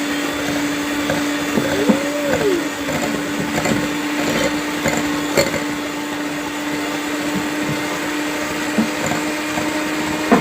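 Electric mixer running at a steady speed, beating eggs and sugar into cake batter until the sugar dissolves. It makes a constant motor hum over a whirring hiss, with a few light clicks of the beaters against the bowl.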